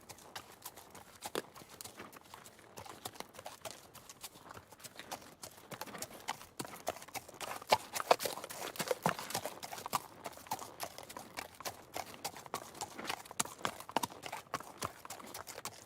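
Horse hooves clip-clopping on a hard surface: a quick, uneven run of sharp knocks, busier and louder from about halfway through.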